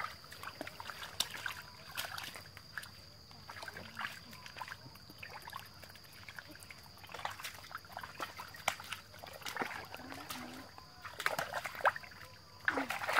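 Hands and feet sloshing and splashing in shallow muddy water, in small irregular splashes while groping for fish in the mud. A faint steady high tone runs underneath.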